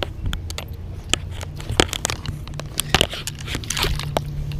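Rustling, crackling handling noise on the camera microphone, with many irregular sharp clicks over a steady low hum.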